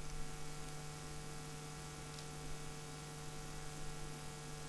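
Steady low electrical hum, like mains hum, with a faint hiss: the background noise of the recording, with no other sound.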